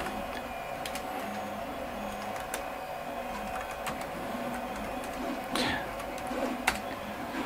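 Irregular keystrokes on a computer keyboard as a short BASIC program is typed, over a steady electrical hum.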